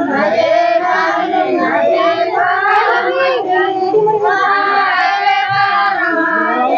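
Girls and women singing a Karma puja song together, several voices overlapping without a break.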